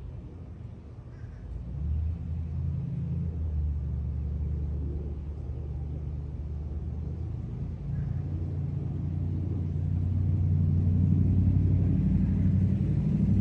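Low engine rumble with a steady hum, setting in about two seconds in and growing louder over the last few seconds.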